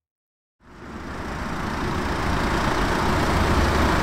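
Volkswagen Transporter van's engine running steadily with a low hum. It cuts in about half a second in and swells up over the next second.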